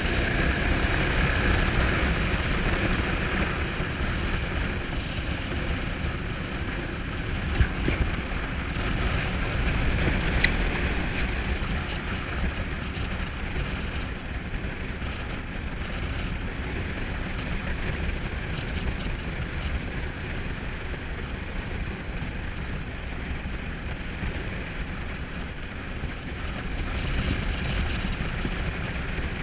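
Motorcycle running along a dirt track, with engine rumble and wind noise on the microphone, and two sharp knocks about seven and ten seconds in.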